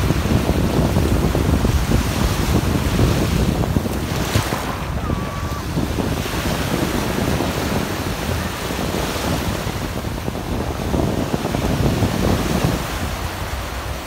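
Small waves breaking and washing up on a sandy shore, with wind buffeting the microphone.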